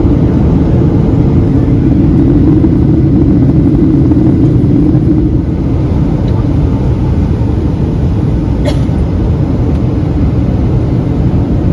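Steady engine and airflow noise inside the cabin of a Boeing 737-800, a deep even rumble from its CFM56 turbofans, with one faint click about two thirds of the way through.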